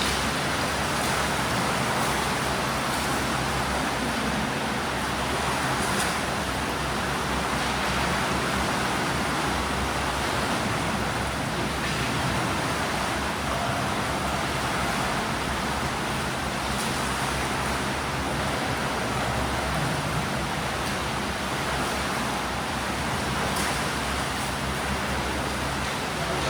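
Steady rushing noise of swimming-pool water churned by swimmers, with a few faint ticks.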